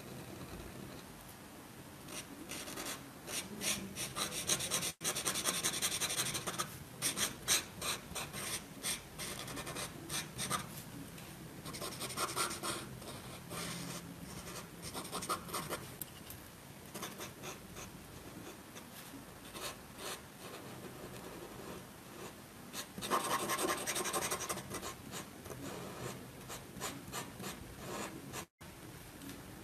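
Marker tip scratching back and forth on paper while black areas of a drawing are filled in, in runs of quick strokes with pauses between.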